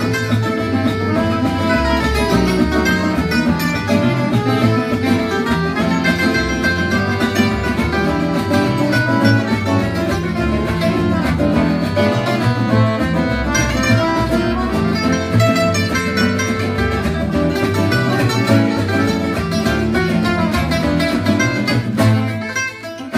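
Gypsy jazz on acoustic guitars: fast plucked lead lines over a steady strummed rhythm. The music breaks off near the end.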